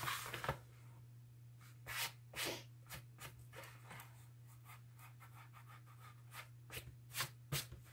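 Hands smoothing and pressing a rolled diamond-painting canvas flat on a tabletop: soft, scattered rustling and rubbing strokes, with a few louder ones about two seconds in and again near the end.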